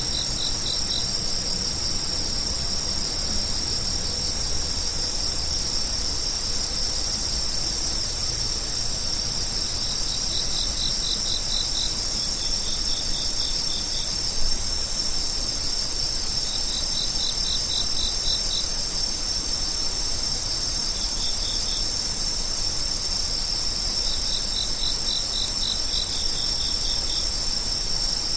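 Insects trilling: a steady, high-pitched continuous drone, with a lower insect chirping in short rapid pulse trains every few seconds.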